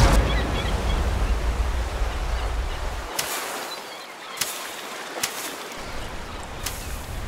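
Ocean surf washing over a shallow, wet beach, with a few sharp taps spread through the middle.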